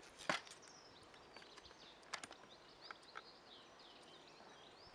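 A few quiet, sharp clicks and snips of a blade cutting open a cardboard and plastic toy box, two close together about two seconds in and two more about three seconds in.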